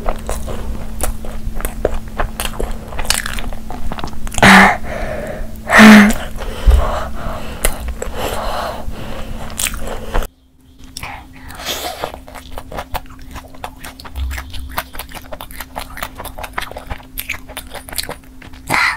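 Close-miked biting and chewing of sauce-coated crispy fried chicken: a dense run of crisp crunches and wet chewing, with two louder bites about four and a half and six seconds in. About ten seconds in the sound cuts to another take with a different background hum, and the crunching chewing goes on.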